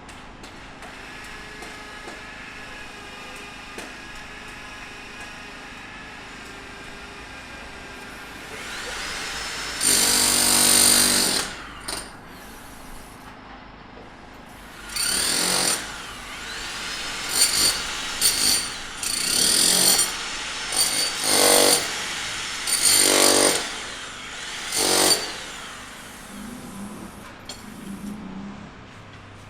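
Power tool at a sidewalk repair, run in short bursts. After a low steady background, it spins up with a rising whine about a third of the way in, then starts and stops about seven times, each run lasting a second or so.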